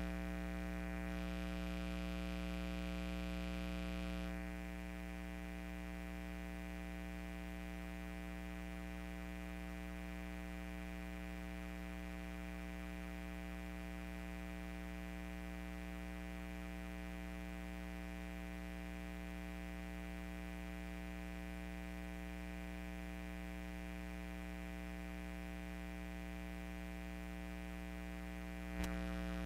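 A steady electrical hum with many evenly spaced overtones, unchanging in pitch. It gets slightly quieter about four seconds in, and there is a faint click near the end.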